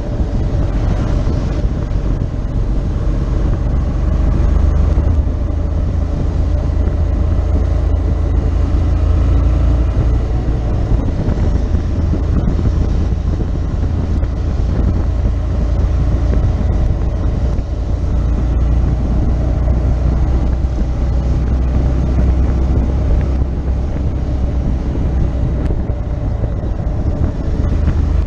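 Motorcycle on the move at road speed: its engine running steadily under a low wind rumble on the bike-mounted camera's microphone.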